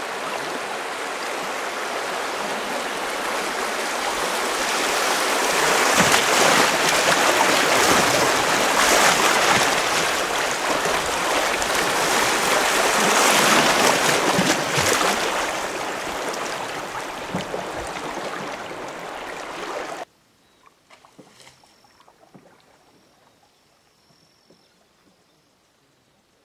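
Whitewater of a small river rapid rushing past a canoe as it runs through, building to its loudest in the middle, with a few knocks. About twenty seconds in it cuts off abruptly to a near-quiet calm stretch with a faint, high whistle.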